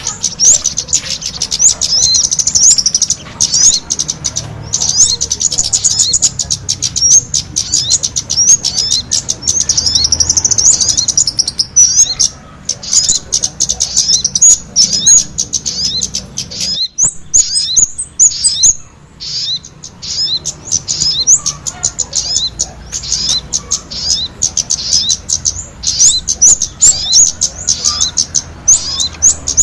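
Bird-lure recording of sogon combined with kemade calls: dense, rapid, high-pitched chirping and twittering, with a brief break a little past halfway.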